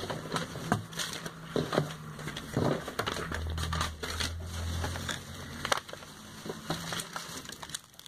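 Plastic packaging crinkling and rustling as bagged cosmetic products are handled, with scattered irregular clicks and crackles.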